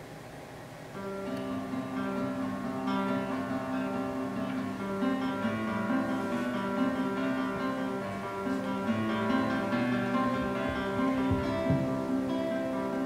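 Nylon-string classical guitar playing a solo passage of plucked chords and ringing single notes, coming in about a second in after a soft lull.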